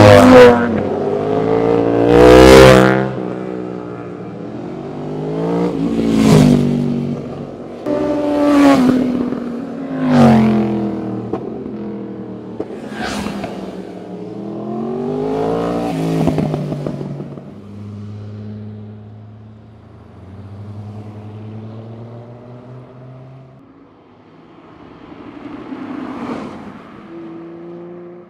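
Sport motorcycles passing one after another through a curve, their engines rising and falling in pitch as they go by: about seven loud pass-bys in the first half, then quieter engines, with a car passing near the end.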